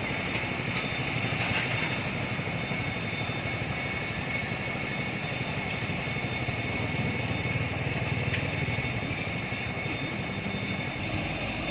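Steady low rumble of trucks and traffic idling at a closed railway level crossing, with the crossing's warning signal sounding a continuous high electronic tone over it.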